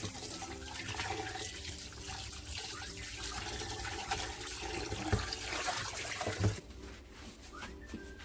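Kitchen tap running into a sink while blanched chicken drumsticks are rinsed, with a few knocks, cutting off about six and a half seconds in. Soft background music plays underneath.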